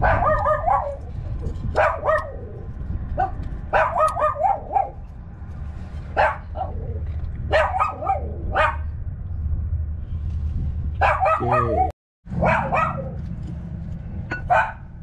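A dog barking repeatedly in short bursts, over a steady low hum.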